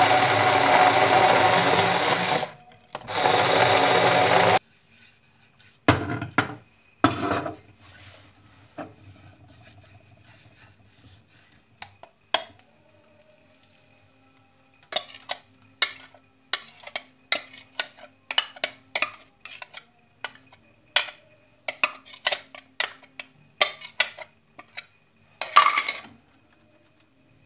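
Hand blender whirring in a plastic jug of egg batter, dipping briefly about two and a half seconds in, then stopping after about four and a half seconds. Scattered light knocks follow, then a long run of quick taps and clatter in the second half.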